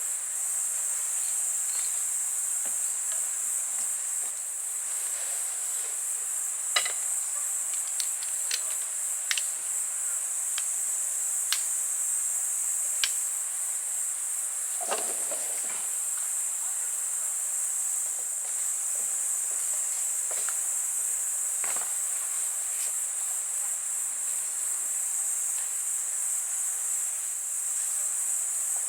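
Steady high-pitched insect chorus, with a few sharp clicks scattered through the middle and a brief lower knock about halfway.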